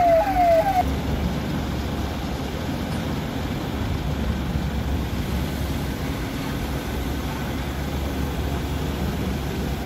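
Police vehicle siren in a fast yelp of quickly repeated falling sweeps, cutting off under a second in. Then a truck engine, most likely the police tow truck's, runs steadily at idle.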